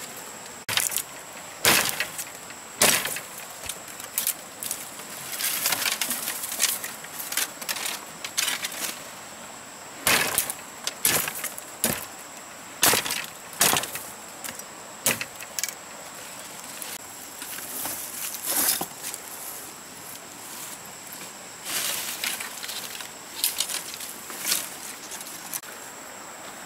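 Machete chopping through thin branches and brush: a series of sharp, irregular cracking strikes, some in quick runs, thinning out near the end.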